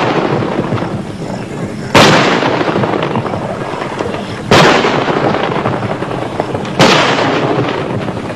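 Artillery shells exploding one after another. There are three sudden blasts, each about two and a half seconds after the last, and each fades off slowly. The dying tail of an earlier blast is heard as the sound begins.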